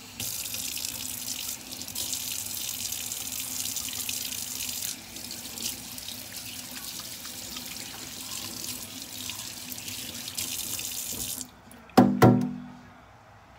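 Kitchen faucet running into the sink while hands are washed under it. The flow gets quieter about halfway through and shuts off, followed by two sharp knocks.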